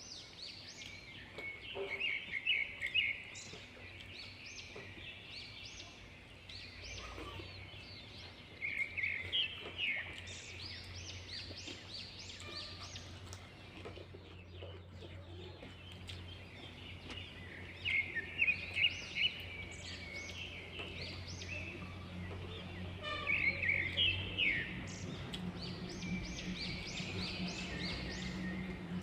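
Birds chirping in quick repeated bursts that come and go several times, over a faint steady low hum.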